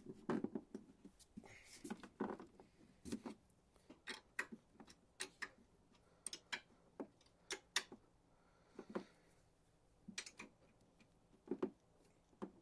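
Faint, irregular clicks and light knocks of metal mounting hardware being worked by hand inside a motorcycle's hard saddlebag as it is fastened to the bike.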